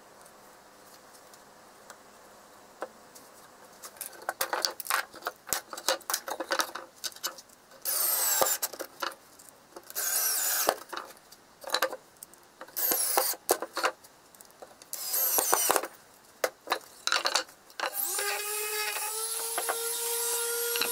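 Cordless drill driving screws into pine boards in four short bursts, with clicks and clatter of tool handling between them. Near the end a random orbital sander starts and runs with a steady pitched hum.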